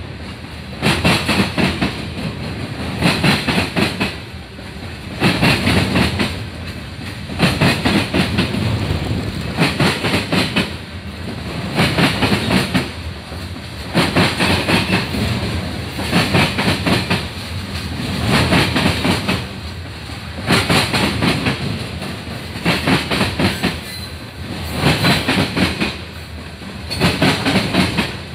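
Freight train of open-top coal cars rolling past, steel wheels clacking over the rail joints. A cluster of clacks comes about every two seconds, with a steady rumble between.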